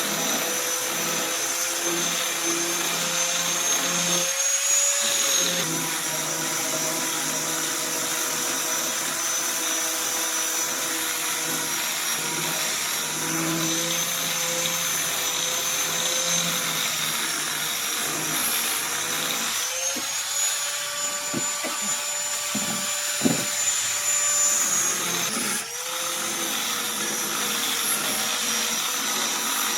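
Electric power tool motor running continuously with a steady whine, its pitch rising briefly twice. A few sharp knocks come partway through.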